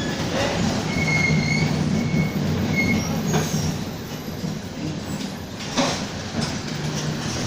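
Mercedes-Benz OF-1722M city bus under way, its engine droning steadily amid body rattles. Three short high squeals come in the first three seconds, and two sharp knocks come later.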